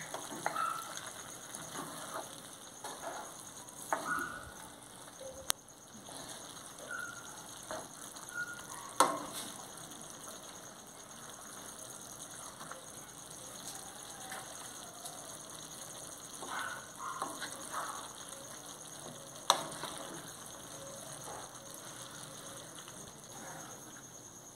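Shrimp and bell peppers sizzling in a large metal pan over charcoal while a wooden spoon stirs them, scraping against the pan, with a few sharp knocks of the spoon on the pan's rim.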